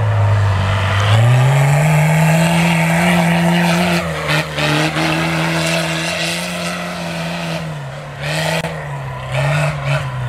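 Small home-built racing tractor's engine revving hard under load as it climbs a dirt slope: the pitch rises about a second in and holds high, then drops and surges in short blips near the end.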